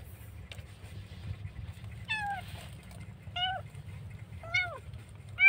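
Kitten meowing four times, short high mews about a second apart, each rising then falling in pitch.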